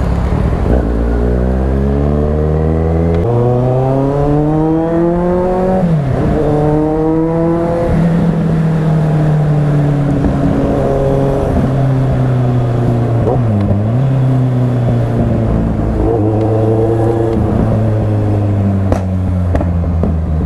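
Kawasaki four-cylinder motorcycle engine pulling up through the gears, its pitch rising in three long climbs that drop back at each shift, then cruising at a steadier pitch with brief dips as the throttle eases off.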